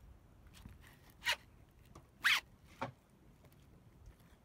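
Three quick rasping scrapes about a second apart, the middle one loudest: a tool dragged across a boat's textured fiberglass non-skid deck.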